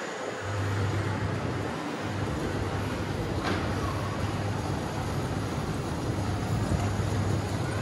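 A steady low mechanical hum over a broad wash of outdoor noise, starting about half a second in, with a faint click about three and a half seconds in.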